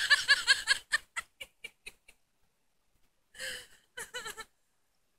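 A person laughing close to the microphone: a run of quick laughs that trails off over the first two seconds, then a breathy laugh and a few more short laughs about three and a half seconds in.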